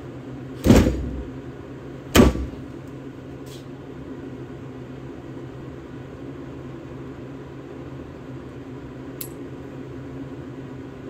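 Two loud, sharp metallic knocks about a second and a half apart as a combination wrench works a fitting loose on a brass brake pressure differential warning valve held in a bench vise, over a steady low hum.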